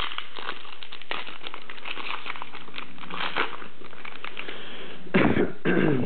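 Foil trading-card pack wrapper crinkling as it is torn open and the cards are slid out. Near the end there are two louder bumps of handling noise.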